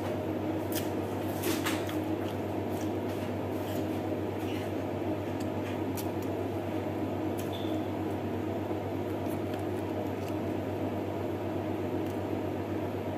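Faint eating sounds, a few soft clicks and squishes as chicken adobo is picked apart by hand and chewed, over a steady low room hum.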